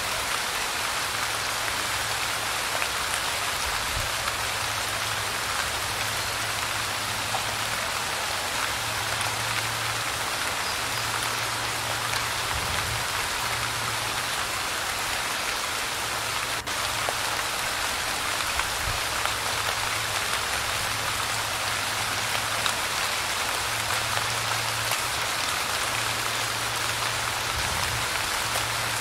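Light rain falling steadily: an even hiss of many small drops striking a surface, with no change in strength.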